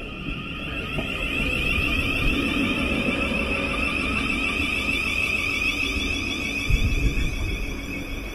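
Siemens Class 700 Thameslink electric train moving slowly past the platform, its electrics giving a steady high whine that sinks slightly in pitch, over a low rumble. A brief low thump comes about seven seconds in.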